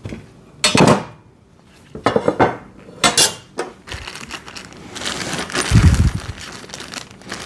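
Steel parts and hardware of a folding welding table clinking and clattering as they are handled, in several short bursts, with a duller thump about six seconds in.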